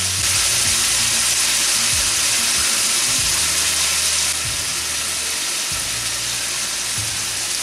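Baby corn, water chestnuts and bell peppers sizzling as they sauté in hot oil in a skillet, a steady frying hiss that eases a little about four seconds in.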